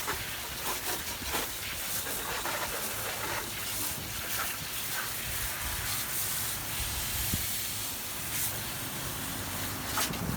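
Steady hissing noise with scattered light clicks and knocks.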